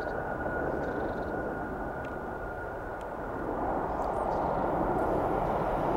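Jet engine noise from an Airbus A340-500 with four Rolls-Royce Trent 500 engines, rolling out on the runway just after landing. It is a steady rush with a thin, steady whine, and it grows louder about halfway through.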